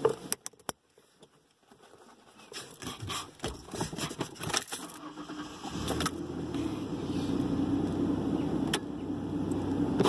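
Sharp clicks and rattles as a seatbelt is fastened in a pickup's cab. Then, from about six seconds in, a steady low hum of the truck's engine, a 1996 Mazda B3000's 3.0-litre V6, idling.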